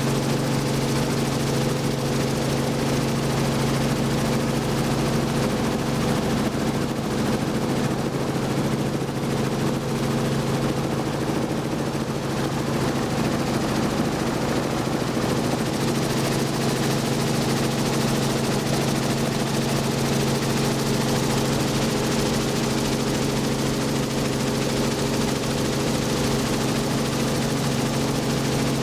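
Robinson R44 helicopter in flight, heard from inside the cabin: its six-cylinder Lycoming piston engine and two-bladed rotor make a steady drone. Wind rushes through the open doorways.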